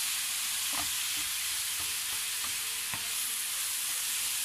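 Chopped onions sizzling in hot mustard oil in a frying pan while a wooden spatula stirs them, with a few faint knocks of the spatula against the pan.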